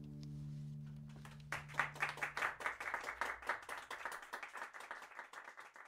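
The last acoustic guitar chord rings out and fades, then a small audience starts clapping about a second and a half in, the claps thinning out toward the end.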